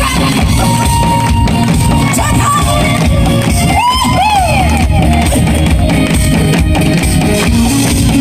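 Loud music with a heavy, steady beat at a live stage performance, with crowd shouts and whoops; a few short rising-and-falling cries stand out about four seconds in.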